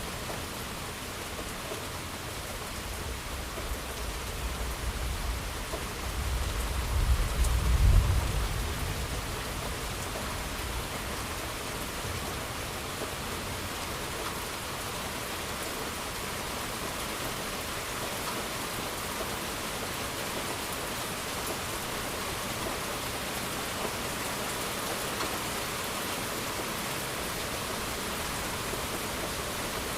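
Steady heavy rain, with a roll of thunder that builds about three seconds in, peaks around eight seconds and dies away over the next few seconds.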